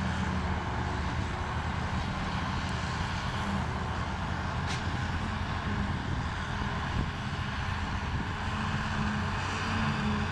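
Heavy diesel farm machinery running steadily under load, a continuous low engine drone with mechanical noise over it.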